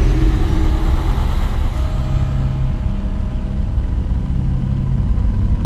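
A steady, deep rumbling drone with a few held low notes fading in and out. It is a cinematic sound-design bed with no impacts or shots.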